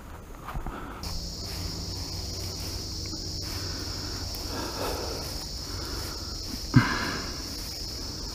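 Insects singing, a steady high-pitched chirring that starts about a second in and holds even throughout, with one short knock a little before the end.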